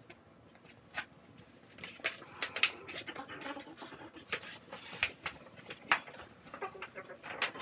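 A large vinyl wall decal crackling and rustling as it is handled and pressed onto the wall by hand, in a run of sharp irregular crackles.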